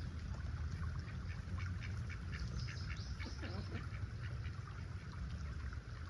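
Ducks quacking in a quick run of short calls, busiest in the middle, over a steady low rumble.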